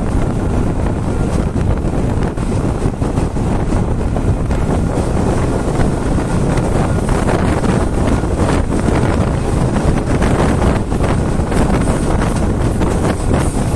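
Wind buffeting the microphone over the steady running rumble of a train, heard from the moving coach.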